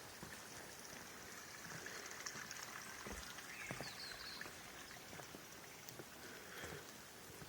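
Faint running stream water with footsteps on the forest path. A couple of short, high chirps sound near the middle.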